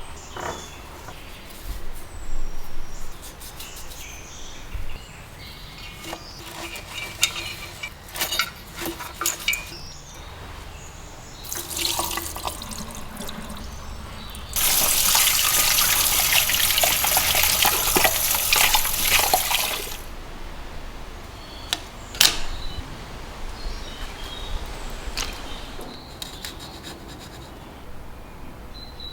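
Scattered clicks and knocks of small parts being handled, and about halfway through a steady rush of running water, like a tap, that starts and stops abruptly after about five seconds.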